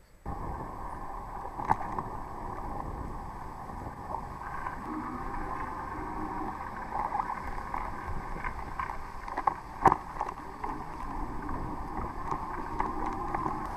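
Riding noise picked up by a bike-mounted camera on a wet street: steady tyre hiss on wet asphalt and wind on the microphone, with a few sharp knocks from jolts, the loudest about ten seconds in.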